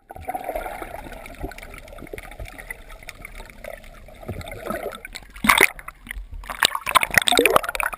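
Water splashing and sloshing around a fishing boat, with a run of louder splashes in the second half.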